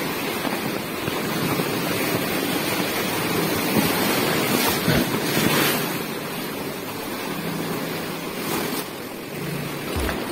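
Sea waves surging and washing against shoreline rocks, heard close to the water, with a louder surge about four to six seconds in.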